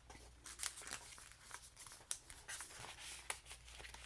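Soft rustling and crinkling of paper as the pages and paper ephemera of a handmade junk journal are handled and turned, a run of small sharp crackles.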